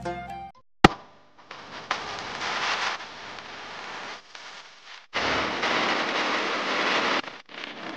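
Plucked-string background music ends, followed by a single sharp click. Then a steady rushing noise plays in edited segments that start and stop abruptly, with a short break about five seconds in and another near the end.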